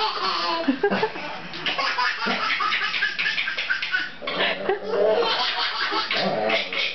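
A baby of about nine months laughing in repeated bursts, mixed with other people's laughter.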